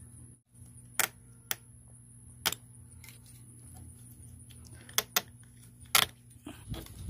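About six sharp clicks and snaps at irregular intervals, from fan-mounting pins in a radiator core being worked by hand.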